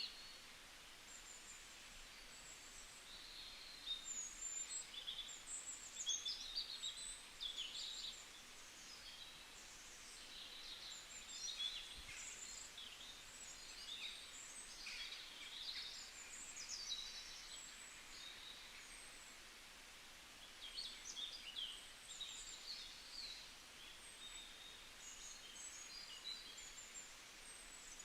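Several birds chirping and calling in a forest, a steady overlapping chorus of short, high chirps and trills over a soft background hiss.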